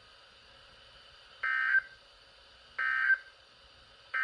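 NOAA Weather Radio SAME digital data bursts played through a Midland weather radio's speaker. Two short buzzy bursts of tones about 1.4 s apart, and a third starts at the very end, typical of the end-of-message code sent after a broadcast statement.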